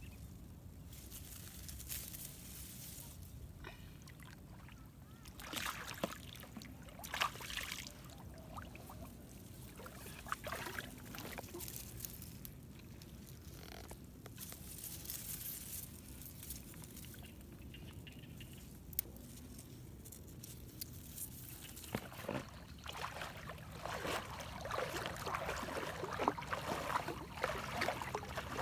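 Shallow floodwater splashing and trickling, with wet grass rustling as hands search through a grass clump. About two-thirds of the way in, the splashing becomes denser and more continuous as someone wades through the water.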